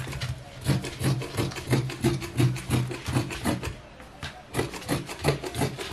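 Fabric shears snipping through cloth on a cutting table, a quick run of cuts about three a second with a short pause about four seconds in.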